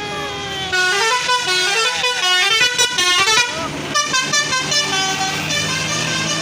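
Bus telolet horn, a multi-tone air horn, playing a melodic tune of quickly changing notes that rise and fall, getting loud about a second in.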